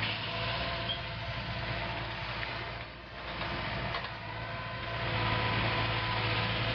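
Diesel engine and hydraulics of a Hitachi 130 excavator running steadily while working a mowing bucket. The engine dips briefly about three seconds in, then comes back louder over the last couple of seconds.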